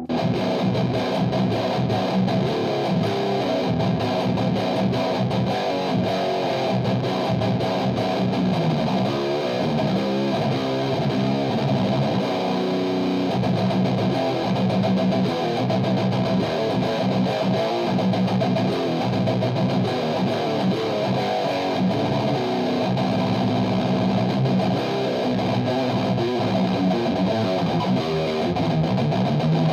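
Electric guitar played continuously through a Mesa Boogie Road King II tube amplifier with a distorted tone.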